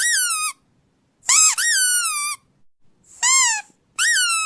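A rubber squeaky dog toy squeaked repeatedly: short, high squeaks, each jumping up in pitch and then sliding down. The last one, starting near the end, is drawn out longer.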